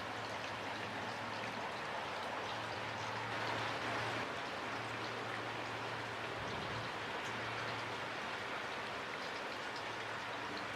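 Steady rain falling, a constant hiss with the ticks of individual drops landing scattered through it.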